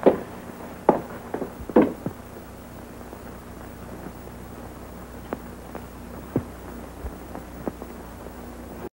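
A door shutting with a sharp knock at the very start, followed by two more knocks about a second apart. After that, only a steady low hum and faint scattered clicks from an old film soundtrack.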